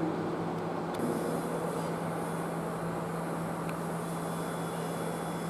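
Steady hum of a large hall's ventilation system, with a constant low tone underneath. A faint high hiss joins about a second in.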